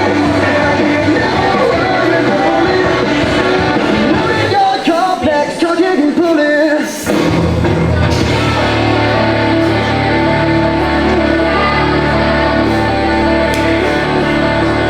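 A song with singing plays. Its bass drops out for about two seconds near the middle, then the full band comes back in.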